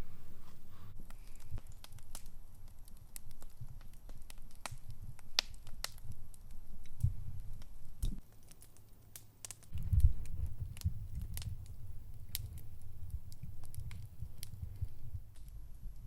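Campfire crackling, with scattered sharp pops and snaps over a low rumble that swells about ten seconds in.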